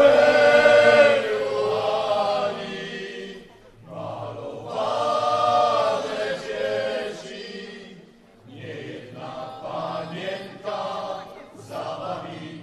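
Voices singing together, a slow song in long held phrases with short breaks between them, the phrases becoming shorter and choppier about two-thirds of the way in.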